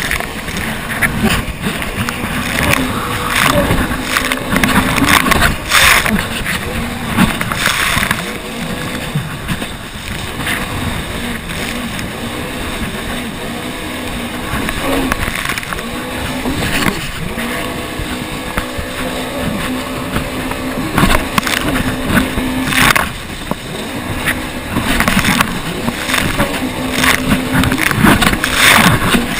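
Yamaha WaveRunner jet ski running at speed across choppy sea: a steady engine drone under the rush of wind and water, with repeated loud bursts of splashing spray as the hull hits the waves.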